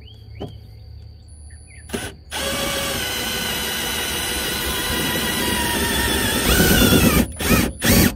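Milwaukee M12 Fuel brushless hammer drill running in reverse, turning a scissor jack's screw: a steady motor whine for about four seconds that rises in pitch and grows louder near the end, then three or four short trigger bursts.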